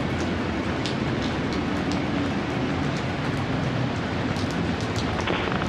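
Steady rain with a low, constant rumble underneath and scattered sharp drop ticks.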